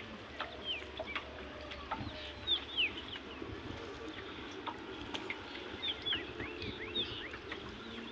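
Birds chirping: many short, high calls, each falling in pitch, repeated irregularly, with a few sharp clicks among them.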